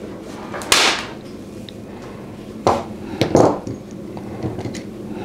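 Metal woodworking clamps being handled and set against a wooden fence: a few sharp knocks and clinks, the loudest about a second in and two more around three seconds in, with lighter ticks after.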